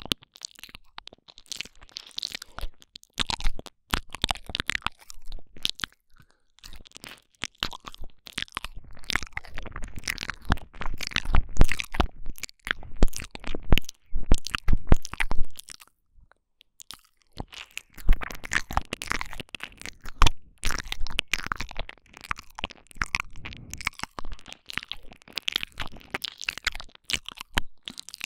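Close-up wet mouth sounds: lips and tongue smacking and clicking quickly and irregularly right against a binaural microphone ('ear eating'), with a pause of about a second a little past halfway.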